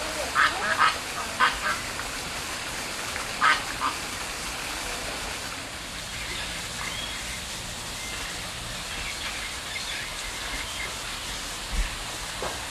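Birds giving short, harsh quacking calls, a cluster of them in the first few seconds and one more near the end, over a steady background hiss.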